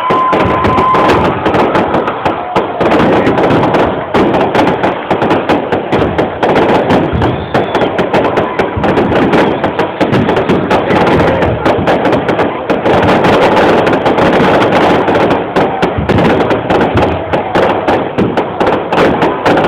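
A fireworks display going off in a dense, continuous barrage of crackles and bangs.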